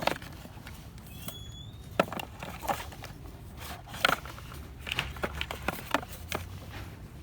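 Store background: a steady low hum with scattered sharp clicks and knocks, and a brief high squeak about a second in.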